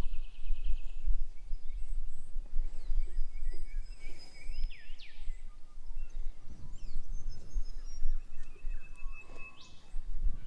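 Wind rumbling on the microphone, with birds calling in the background: a trill in the first second, a few rising and falling calls around four to five seconds in, and a thin held whistle near the end.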